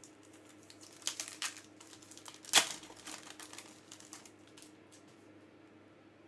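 A foil trading-card pack being torn open by hand: crinkling and rustling of the wrapper, with a short run of crackles about a second in and one sharp, loud rip about two and a half seconds in, then softer rustling as the cards are handled.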